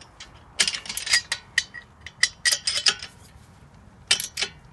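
Ratchet wrench clicking on a front brake caliper bolt, in irregular bursts of sharp metallic clicks, with tools clinking.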